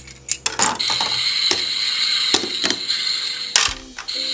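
Hard plastic toy food and a plastic spatula clicking and knocking against a plastic toy frying pan, several separate clacks over a steady high hiss.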